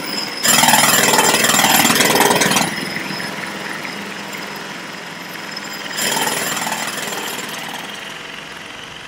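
Jackhammer hammering, a loud, fast, even rattle that stops about two and a half seconds in, leaving fainter steady work noise.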